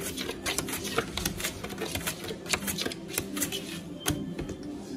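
Playing cards being dealt from a shoe and placed on a felt blackjack table: a run of irregular light clicks and snaps.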